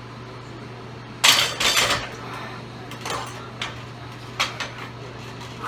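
A barbell loaded with 225 lb of iron plates racked onto the steel uprights of a flat bench, giving a loud burst of metal clanging about a second in. A few lighter metal knocks and clinks follow.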